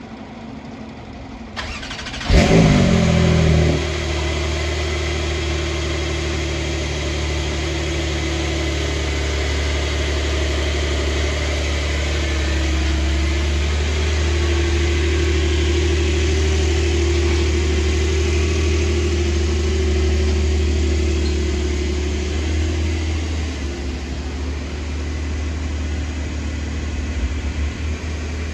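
Porsche 911 (992) Turbo's twin-turbo flat-six starting: it catches about two seconds in with a short, loud rev flare, then settles into a steady high idle that drops a little near the end.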